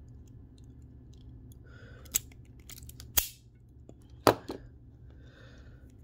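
Hand wire stripper gripping and stripping the insulation off a 20-gauge wire: three sharp clicks about a second apart, the middle one followed by a short rasp.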